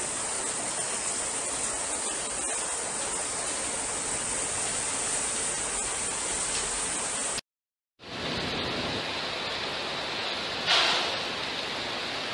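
Heavy rain pouring down onto a flooded street, an even steady hiss that cuts off abruptly about seven seconds in. After a brief silence a duller steady rushing noise follows, with a short louder swell near the end.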